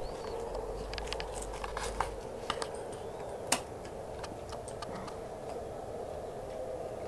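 Scattered sharp clicks and taps, such as dogs' claws on concrete as a big dog and a puppy tussle, over a steady low hum. One click about three and a half seconds in is louder than the rest.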